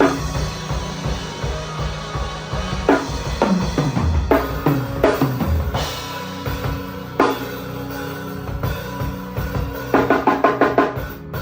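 Drum kit played during a sound check: bass drum, snare and tom hits, ending with a fast fill of rapid strokes.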